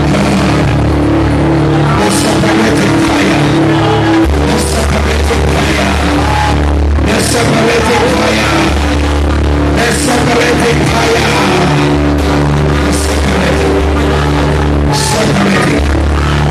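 Loud amplified worship music: sustained keyboard bass notes that change every couple of seconds, with a crash every two to three seconds and a man singing into a handheld microphone.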